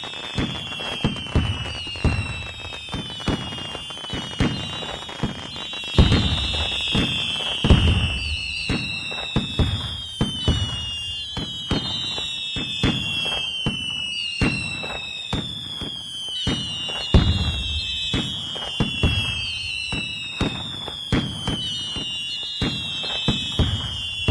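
Fireworks going off in a continuous barrage of bangs and crackles, with deeper booms about 6, 8 and 17 seconds in. High whistles keep sliding downward in pitch over the bangs, a new one starting about every one to two seconds.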